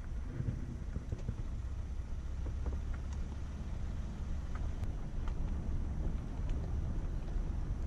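A vehicle rolling slowly over the loose wooden planks of a suspension bridge: a steady low rumble with scattered clacks and creaks from the boards.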